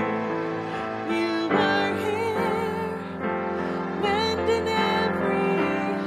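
A woman singing a worship song into a microphone, holding notes with vibrato, over keyboard accompaniment.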